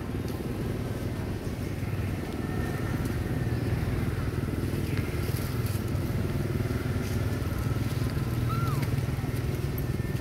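A steady low engine drone, a little louder from about two seconds in, with a brief high falling call near the end.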